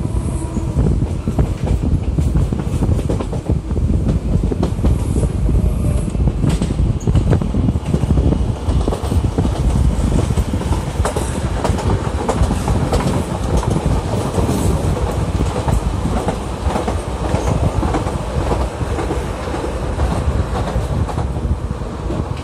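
RER D commuter train running along the line, heard at an open window: a steady rumble of wheels on rails with wind, broken by frequent sharp clacks as the wheels cross rail joints and points.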